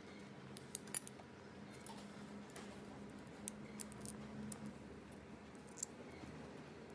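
Small sharp clicks and ticks of metal plug pins and wire terminals against a plastic plug housing as it is handled and fitted together by hand, scattered and irregular, over a faint steady hum that fades about two thirds of the way in.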